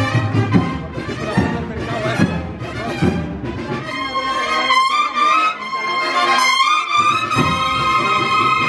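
A band plays a processional march, led by trumpets and other brass. A few accented beats sound in the first half, then the brass takes over with long held notes from about halfway, and the bass drops out for a few seconds before coming back.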